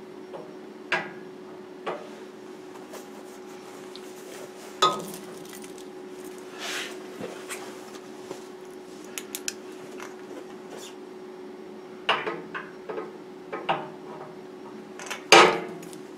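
Metal clinks and knocks as a steel shaft is handled and worked into the cast-iron column of a Clausing surface grinder, with the loudest clank near the end. A steady low hum runs underneath.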